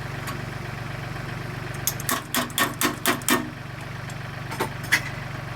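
Yanmar YT235C tractor's diesel engine idling steadily, with a quick run of about six sharp metallic clanks about two seconds in and two more clicks near the end, from the box blade's top link being loosened and turned with a spanner.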